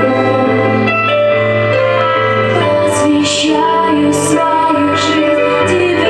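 Slow, gentle worship song sung by a woman's voice over sustained keyboard chords.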